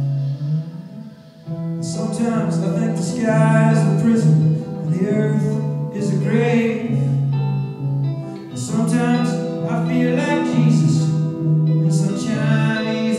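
Live song with guitar and a man singing, over steady sustained low notes. The music dips briefly about a second in, then the singing comes in about two seconds in.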